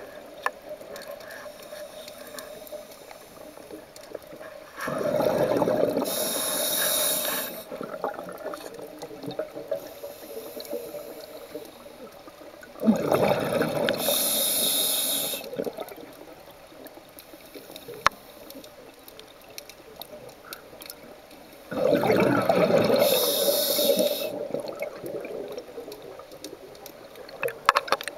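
Scuba diver's regulator underwater: three bursts of exhaled bubbles, each lasting two to three seconds and coming about eight seconds apart. Between breaths there is a quieter hiss and scattered small clicks.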